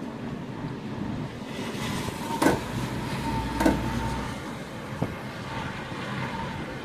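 Steady rushing and rumbling of storm wind. Three sharp knocks come roughly a second apart, the first two with a short metallic ring.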